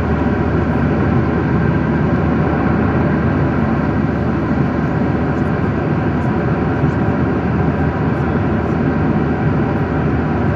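Steady rumble of a jet airliner heard from inside the passenger cabin: engine and airflow noise, even and unchanging, with most of its weight low.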